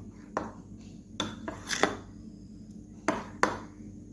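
A steel spoon stirring thick beetroot dosa batter in a bowl, knocking and clinking against the bowl's sides in about seven short, irregular taps.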